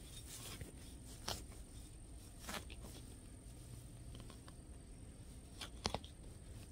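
Faint scraping and crunching of a hand digger cutting a plug of grassy sod and prying it up, with a few short sharp snaps, the loudest about six seconds in.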